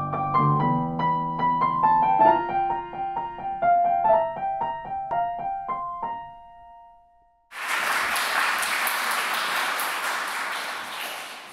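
Short piano intro jingle: a quick run of notes ending on a held tone that fades out about six seconds in. Then, about seven and a half seconds in, an audience starts applauding, and the applause tapers off near the end.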